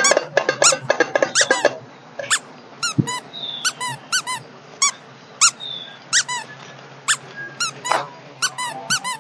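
A long uneven series of short, high squeaks, each rising and falling in pitch, about two a second, with a couple of brief higher chirps near the middle.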